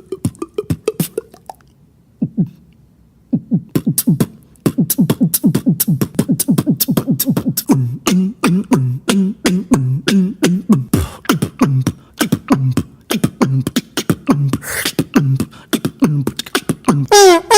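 Vocal beatboxing: a fast, steady beat of sharp mouth clicks and snare-like hits layered with short pitched bass pulses from the voice, after a brief pause about two seconds in.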